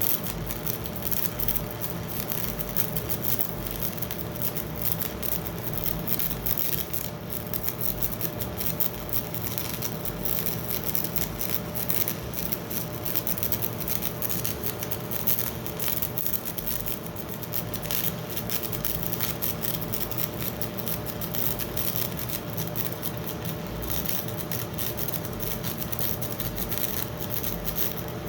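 Stick-welding arc of a 7018 rod crackling and sizzling steadily, with a steady electrical hum from the Miller Econotwin welder underneath. The rod is run on straight polarity and pushed rather than dragged, which the welder blames for a poor-looking bead.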